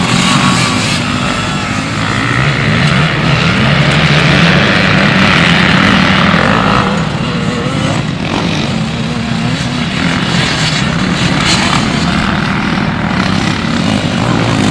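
Motocross dirt bike engine running hard, its pitch rising and falling again and again as the rider works the throttle.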